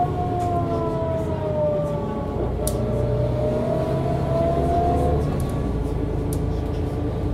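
1998 Mercedes-Benz O 405 N2 city bus under way, heard from on board. A whining drivetrain tone slides down in pitch, breaks off about two and a half seconds in, then rises again over a heavier engine drone until it drops away about five seconds in.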